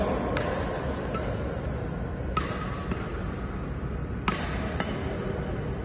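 Badminton rackets striking a shuttlecock in a rally: about five sharp cracks, spaced half a second to two seconds apart, over a steady background hiss.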